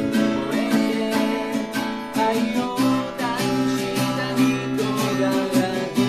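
Yamaha acoustic guitar strummed in a steady rhythm, with a man singing over it.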